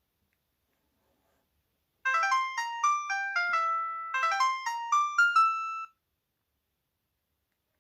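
A ringtone playing from the loudspeaker of an HTC Monet (Lobster 700TV) phone. It is a quick melody of short notes in two similar phrases, starting about two seconds in and stopping about two seconds before the end.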